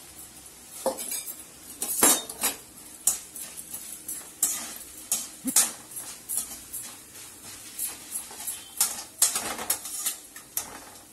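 Perforated metal skimmer scraping and clinking against a metal kadai in irregular strokes, stirring flattened rice as it fries in a little oil.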